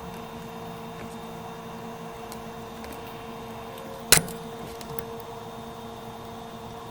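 A steady machine hum with a constant whine, broken once by a sharp click about four seconds in.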